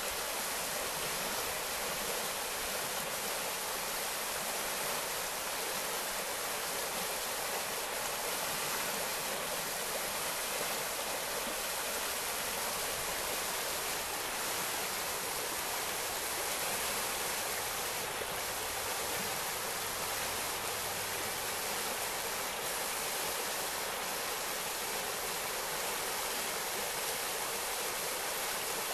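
Small forest stream running steadily: a constant, even rush of moving water, mostly high-pitched with little low rumble.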